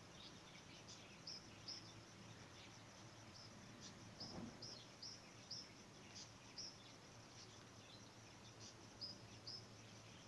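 Near silence, with faint, short, high-pitched chirps from a small animal in the background, about a dozen at uneven gaps.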